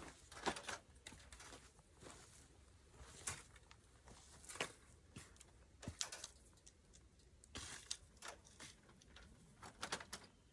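Faint, scattered clicks and rattles of a barbed-wire gate being handled, its wire and loose wooden stake knocking, with a quick cluster of clicks near the end.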